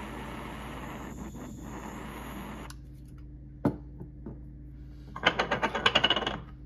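Butane torch flame hissing steadily as it lights the cocktail smoker's wood chips, then cutting off abruptly just under three seconds in. A sharp knock follows, then a quick run of small clicks near the end.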